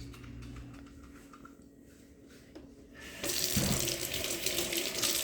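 Kitchen sink tap turned on about three seconds in, water running and splashing into the sink as egg is rinsed off the hands.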